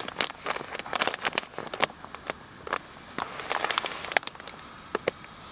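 Self-heating ration pack's plastic bag crinkling and crackling in irregular clicks as it is folded and resealed by hand. Under it, the faint steady hiss of the water-activated heater reacting inside.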